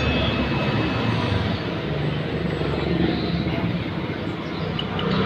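A small engine running steadily with a low hum.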